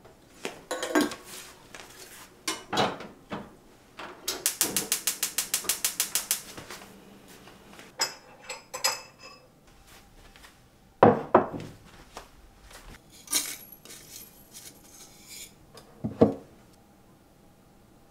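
Kitchen handling sounds: knocks and clinks of a glass jar and a ceramic mug set on a wooden counter. A quick run of even clicks, about eight a second, lasts some two seconds. Near the end, instant coffee granules are poured from a glass jar into the mug.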